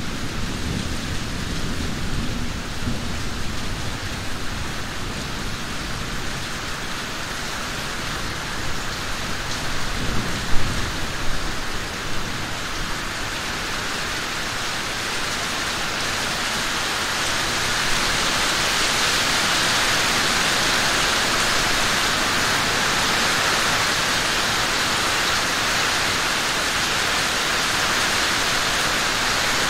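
Heavy rain pouring steadily onto forest trees, with a low distant rumble of thunder in the first few seconds. A few sharp nearer hits stand out about ten seconds in, and the downpour grows louder a little past halfway.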